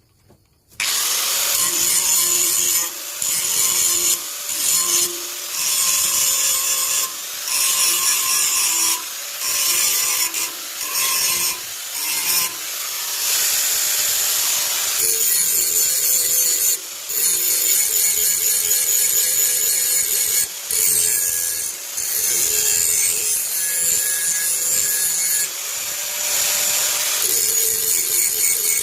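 A forage chopper machine's steel blades being sharpened. The harsh abrasive grinding starts abruptly about a second in and goes on in long passes, broken by short pauses.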